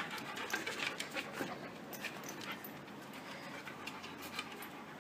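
A dog panting, with a scatter of short clicks over the first couple of seconds.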